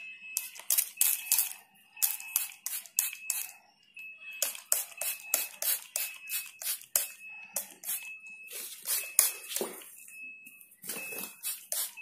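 Hand trigger spray bottle misting a small bird held in the hand, in many short hissing squirts a few per second, to wet its feathers gently before a bath. A short, high, steady note repeats about every half second throughout.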